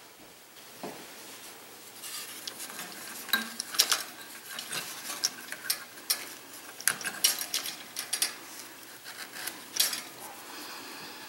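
Irregular small scraping, rustling and clicking as a strip of paper towel is worked between a toaster's metal switch contacts and rubbed against its sheet-metal frame, wiping away sandpaper grit. It gets busier about two seconds in.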